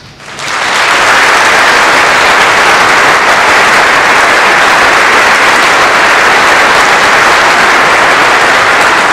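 Audience applauding, a dense steady clapping that swells up in the first half second and then holds loud.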